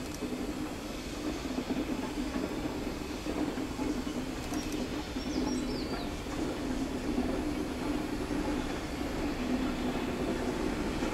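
Distant JS-class 2-8-2 steam locomotive working a long freight train, its exhaust and rolling wagons making a steady rumble. A bird chirps briefly about five seconds in.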